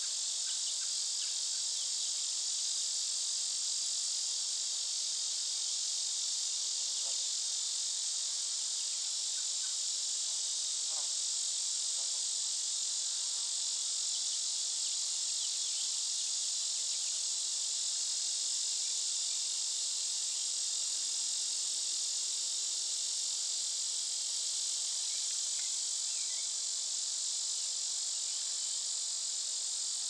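A steady, high-pitched chorus of insects trilling without a break, with a few faint short chirps over it.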